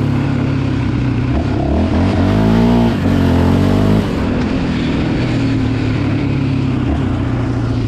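Yamaha Raptor 700R ATV's single-cylinder four-stroke engine running under way. It revs up and back down about two to three seconds in, then holds a steady pitch.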